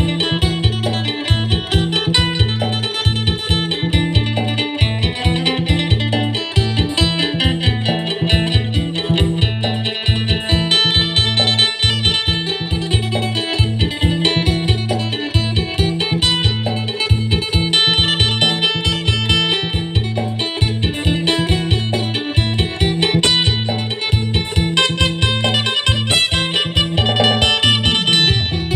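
Acoustic phin, the Isan plucked lute, playing a fast, busy melody of bright plucked notes over a steady, pulsing low accompaniment.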